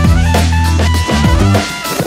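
Background music with a drum beat and a bass line.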